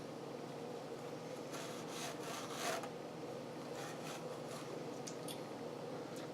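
A green scouring pad rubbing over wood in a few short, light strokes, buffing off white chrome-polish residue, over a steady low hum.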